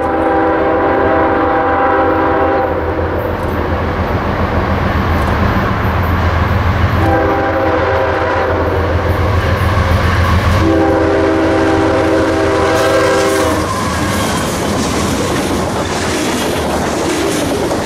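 CSX freight train's diesel locomotive horn sounding three long blasts at a grade crossing, the last two nearly run together, over the low rumble of the locomotives. After the horn stops, about three-quarters of the way in, the freight cars roll past with a clickety-clack of wheels over the rail joints.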